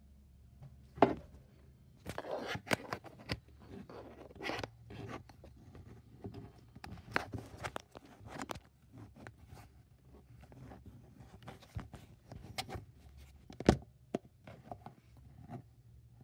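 Handling noise: irregular clicks, knocks and scrapes as a plastic transforming robot toy and the camera are moved about, with a sharp knock about a second in and another late on.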